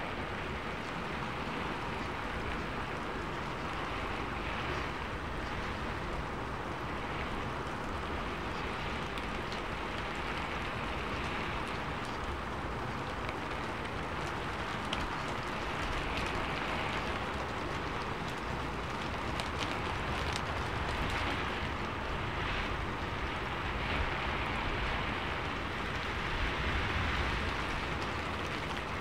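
Steady rushing water noise, rain-like with slow swells and a few light ticks, used as a masking backing track.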